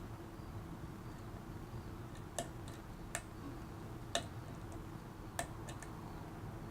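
Small sharp metallic clicks, irregular and about a second apart, from a lock pick working the pin stack of a pin-tumbler lock with a restrictive JA keyway, over a faint steady hum.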